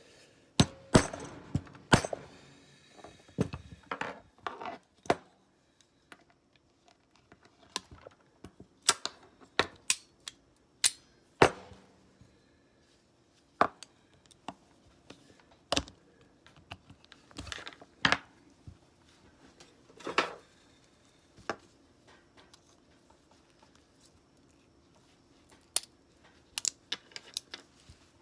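Irregular clicks and knocks of small metal parts and tools being handled and set down on a hard work surface, with a few brief scraping sounds.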